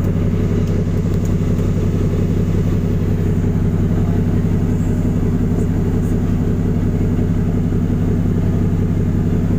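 Passenger ferry's engines droning steadily on deck: an even low hum with a constant hiss above it.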